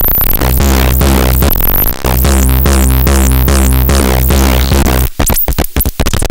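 Eurorack modular synthesizer patched through a Schlappi 100 Grit distortion and feedback module, played by touching its touch points. It gives a loud, gritty, distorted drone with a steady low hum beneath and squealing high feedback tones that glide. About five seconds in it turns choppy, cutting in and out several times in quick succession.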